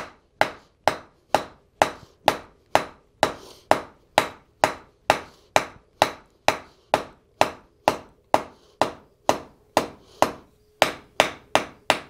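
Hand hammer striking red-hot steel bar on an anvil, drawing out a taper: steady blows about two a second, each a short sharp clank. The blows stop for about a second shortly before the end, then a few more follow.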